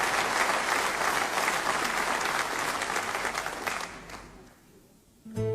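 Audience applauding, the clapping dying away about four seconds in; an acoustic guitar begins strumming right at the end.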